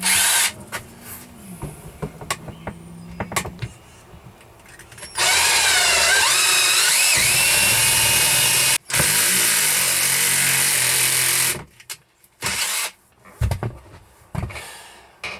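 Old cordless drill boring into the boat's floor: a short burst, then a long run of about six seconds with a brief break, its motor pitch sagging and wavering under load, then a few short bursts near the end. The bit is not breaking through the floor.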